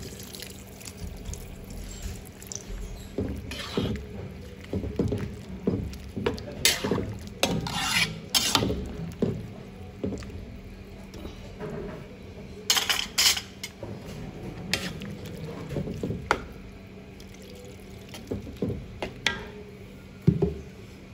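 Water poured into a large metal wok of coconut-milk stew, then a ladle stirring the stew, with repeated scrapes, clinks and knocks against the wok. A faint steady hum runs underneath.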